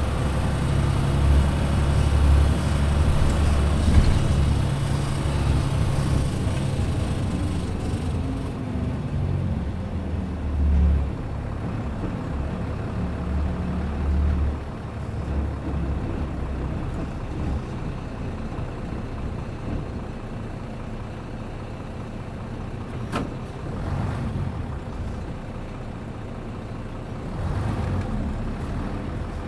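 Hino KC-RU1JJAA bus's engine running, heard from inside the cabin. There is a strong low drone for about the first half that then eases to a quieter run, and a single sharp click about 23 seconds in.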